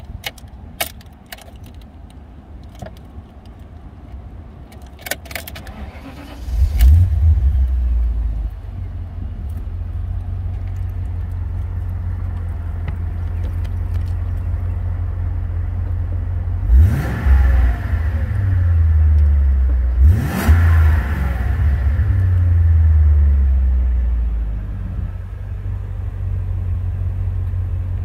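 A few key jingles and clicks at the ignition, then the BMW E34 540i's 4.0-litre V8 starts about six seconds in and settles to a steady idle. It is revved twice, each rev rising and falling in pitch, about 17 and 20 seconds in, then idles again.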